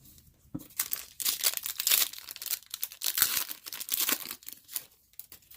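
The plastic wrapper of a 2020 Donruss baseball card pack being torn open and crinkled: a dense run of crackles starting about half a second in and dying away near the end.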